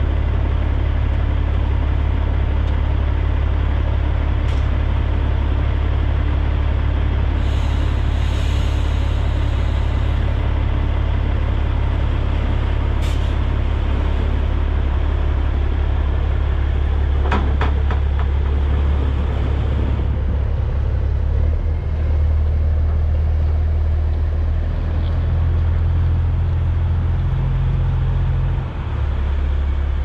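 A heavy semi tractor's diesel engine runs with a steady low rumble as the truck pulls away. About eight seconds in there is a hiss of released air, and a few sharp clicks come a little past the middle. From about three-quarters of the way through, the engine note shifts.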